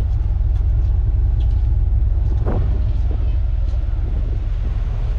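Steady low rumble of wind buffeting the microphone on a ferry's open sun deck, mixed with the ship's drone.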